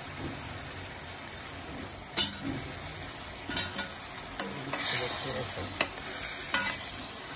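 Peeled taro root pieces being added to a stainless steel pan of frying masala and stirred with a metal slotted spoon: a steady sizzle, with about six sharp clinks of the spoon against the pan.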